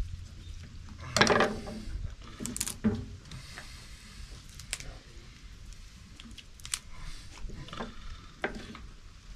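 Knife cutting raw armadillo meat away from the front leg and shoulder on a cutting board: soft wet cutting sounds with a few sharp clicks and taps of the blade.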